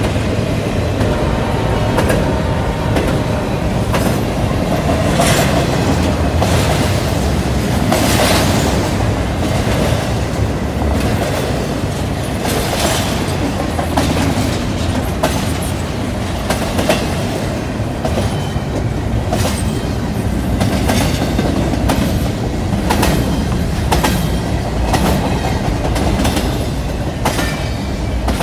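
Double-stack intermodal freight train's well cars rolling past close by: a steady rumble of steel wheels on rail, with sharp clacks repeating irregularly as the wheel trucks go by.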